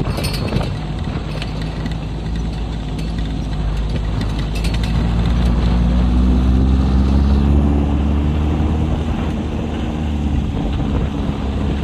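Vehicle engine running while driving. Its pitch climbs for a few seconds midway as it speeds up, then holds steady.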